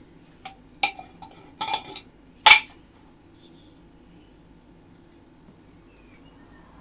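A handful of short clinks and knocks of kitchenware being handled, bunched in the first three seconds, the loudest about two and a half seconds in.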